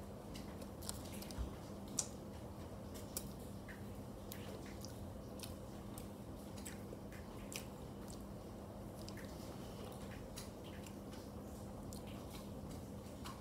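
A person chewing a mouthful of bread spread with Nutella close to the microphone: small, irregular mouth clicks throughout, a few louder ones in the first two seconds, over a faint steady hum.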